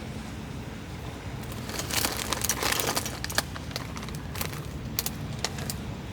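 Crinkling rustle for about a second, starting some two seconds in, then several separate sharp clicks, over a steady low rumble.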